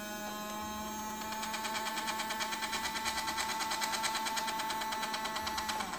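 Small electric motor and plastic gears of a toy remote-control Lamborghini whirring as its scissor door swings shut. A steady whine is joined about a second in by a rapid ticking, and both cut off suddenly at the end.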